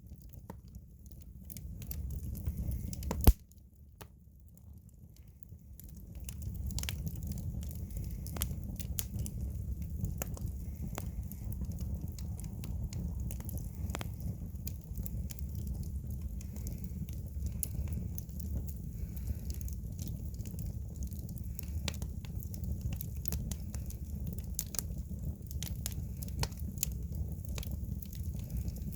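Firewood burning in an agungi, a traditional Korean wood-fired furnace: irregular sharp crackles and pops over a steady low rumble. One much louder crack comes about three seconds in, and the fire sounds quieter for a couple of seconds after it.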